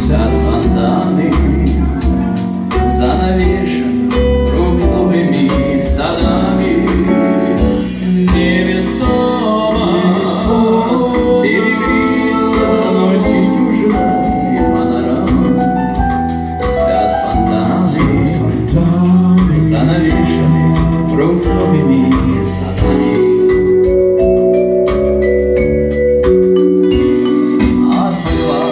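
Live band playing a song with a man singing over bass guitar, keyboard, drums and electric guitar.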